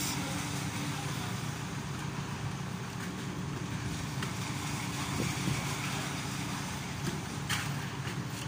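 Diesel engine of a Carmix self-loading concrete mixer running at a steady speed, driving the mixing drum as it discharges concrete down its chute.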